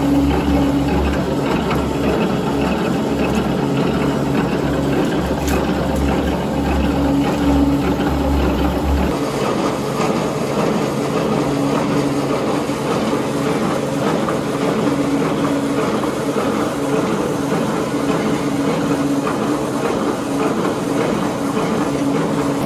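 Plastic-recycling machinery running steadily, a loud continuous mechanical hum from its motor and gearbox. About nine seconds in, the low rumble drops away and a steadier, higher machine noise carries on.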